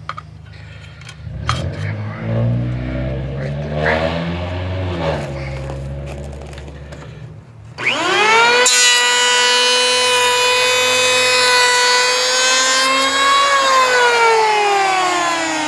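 Handheld electric planer (Porter-Cable 6 amp) on wood: knocks and handling clicks for the first half, then the motor spins up about eight seconds in, runs at a steady high whine with a cutting hiss over it, and starts winding down near the end.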